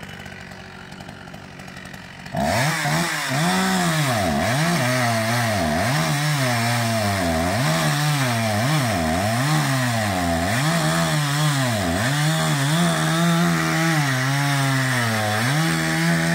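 Petrol chainsaw cutting through a log. It cuts in abruptly about two seconds in, and its engine note dips and climbs back about once a second as the chain bites into the wood, then holds steady at higher revs near the end.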